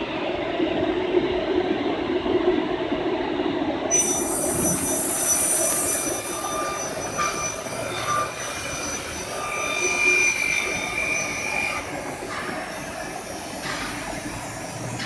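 Five-axis CNC router machining an insulation panel: a steady machine noise, joined about four seconds in by a high-pitched screeching whine that is loudest soon after and then settles to a steady whine.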